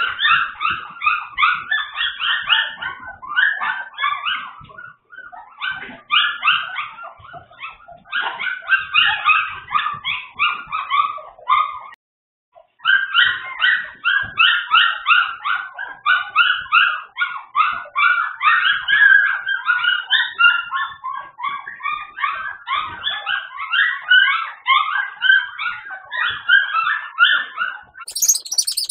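A litter of young puppies whining and yipping almost without pause, many short, high cries a second, with a brief break about twelve seconds in.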